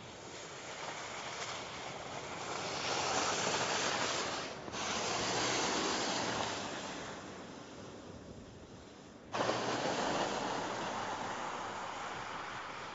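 Mercedes-Benz E-Class All-Terrain driving by on a wet, slushy road: a hiss of tyres through slush over a low engine hum, swelling as the car passes and fading as it moves away. The level dips briefly a little before halfway and jumps up suddenly about nine seconds in.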